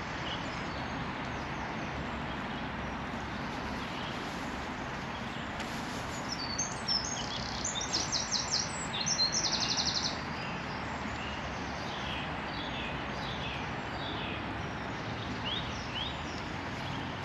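Songbirds singing over a steady rushing background: a loud run of fast trilled notes between about six and ten seconds in, then scattered short chirps.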